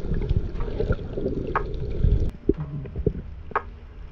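Water sloshing and gurgling around the microphone, with scattered clicks and knocks. The sound drops sharply a little past halfway, leaving only sparse clicks.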